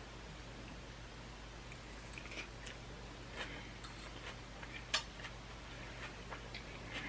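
A person chewing crunchy vegetables up close: small crackling and clicking chews from about two seconds in, with one sharper click near five seconds, over a steady low hum.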